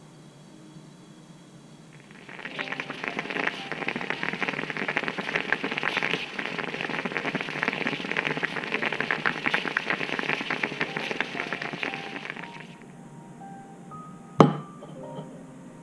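Stainless-steel stovetop moka pot on a gas burner sputtering and gurgling as the brewed coffee spurts up into the top chamber: a dense crackle that starts about two seconds in and stops suddenly about ten seconds later. Near the end a drinking glass is set down on the countertop with one sharp knock.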